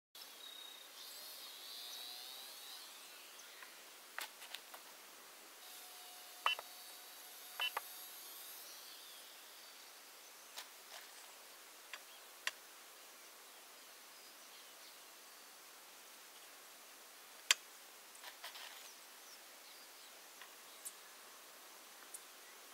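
Faint outdoor background hiss with scattered sharp clicks and ticks, two of them carrying a short high beep, and a faint high whine that fades out about three seconds in.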